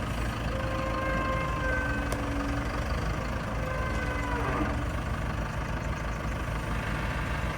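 Heavy engine running steadily with a low rumble, with a few held higher tones over it and a falling whine about halfway through.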